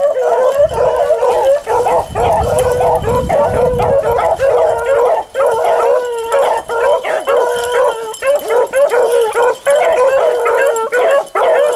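A pack of beagles baying, several voices overlapping in a near-continuous chorus of drawn-out bawls: hounds giving tongue as they work a rabbit's scent trail.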